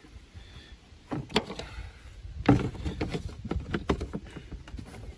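Plastic body panels and covers of a Honda TRX 300 ATV being handled and pressed into place: a run of short knocks and clicks starting about a second in, coming more often in the second half.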